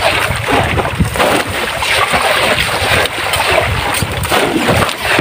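Sea water splashing against a small fishing boat's hull, with wind on the microphone: a loud, steady rush of noise.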